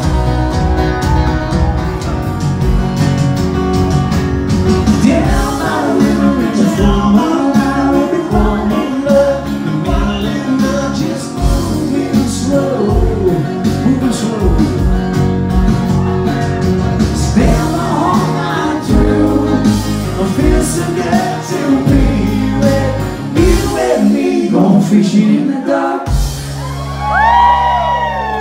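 Live band playing amplified rock music: drum kit, electric and acoustic guitars and a male lead vocal singing. The drums and bass drop out for a couple of seconds near the end before the full band comes back in.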